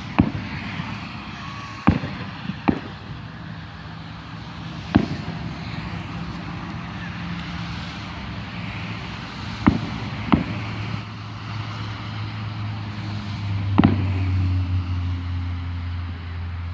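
Fireworks going off: about seven sharp bangs at uneven intervals, with a steady low hum underneath that grows louder in the second half.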